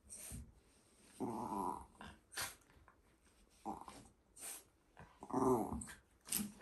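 Shiba Inu rubbing its wet muzzle along a floor edge, giving low growly grumbles, two of them longer, with short smacking and scuffing clicks in between.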